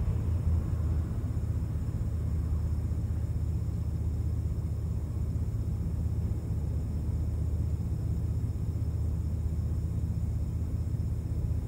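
Wind buffeting the microphone: a steady low rumble with no distinct knocks or creaks.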